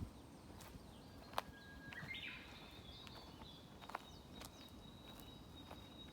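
Small songbirds chirping and calling in a forest, with a thin high note held through the second half, and a few sharp clicks.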